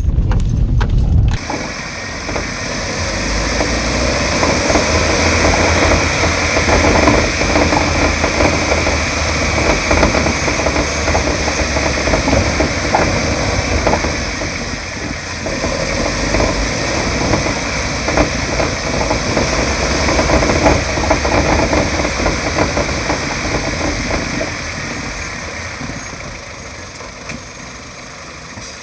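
Kia Cerato on the move, heard through a microphone in the engine bay by the right front wheel: steady engine and road noise with many irregular knocks from the front suspension, the noise the customer complained of, which the mechanic puts down to a worn, oil-leaking front shock absorber. The knocks are thickest in the middle and the noise grows quieter near the end.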